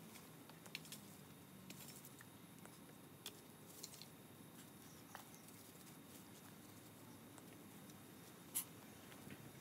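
Faint, sparse clicks and crackles of dry twigs and leaves from a small debris fire being poked with a stick, with one sharper snap near the end.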